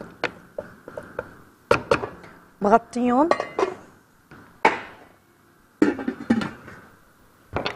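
Pots and pans clattering: a wooden spoon knocking against the pot while chicken pieces are stirred, then a cluster of clinks about six seconds in as a lid is set onto the pot.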